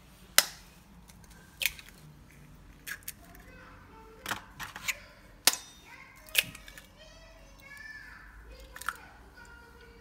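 Eggshells cracked with a kitchen knife blade over a glass bowl: a series of sharp cracks and taps, one every second or so, the loudest near the start and about five and a half seconds in.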